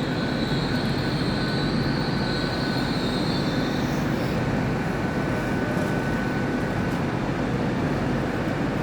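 Train running through a railway station: a steady rumble with a high whine that fades out about four seconds in.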